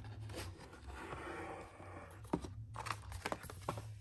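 A thick cardboard board book being handled and its page turned: rustling and rubbing of the stiff pages, then several sharp clicks and taps in the second half as the page comes over and is pressed flat.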